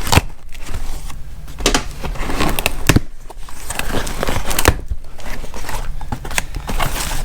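Packing paper and cardboard rustling and crinkling, with irregular knocks and clicks, as a parcel is unwrapped by hand.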